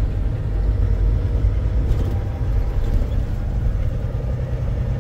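Semi-truck cab on the move: the diesel engine running steadily under a constant low road rumble.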